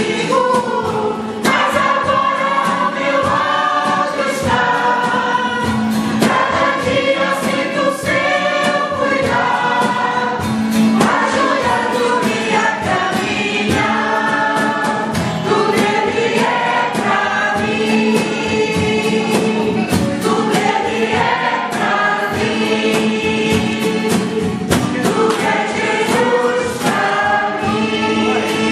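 A choir of women and men singing a hymn together, held notes carried along by a strummed acoustic guitar.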